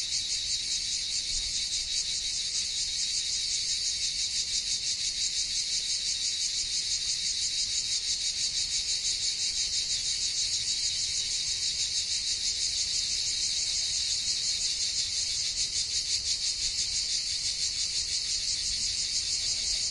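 Cicadas buzzing in a steady, high-pitched chorus with a fast pulsing shimmer, unbroken throughout.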